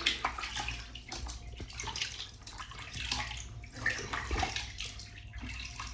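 Bathwater splashing and sloshing in a plastic basin as a hand scoops and swishes it, in small irregular splashes.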